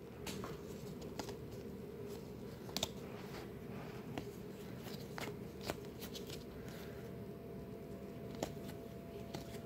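Stack of baseball trading cards being thumbed through by hand: faint sliding of card stock with scattered soft clicks as cards flick past one another, over a low steady hum.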